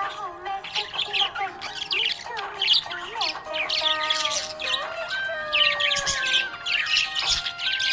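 Budgie chirping in many short, sharp calls in quick succession, over steady held tones that change pitch now and then.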